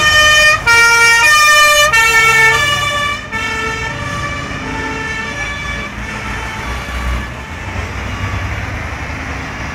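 Emergency vehicle's two-tone siren, alternating between two pitches with each held about half a second; it is loud at first and fades away after about three seconds, leaving the low rumble of passing road traffic.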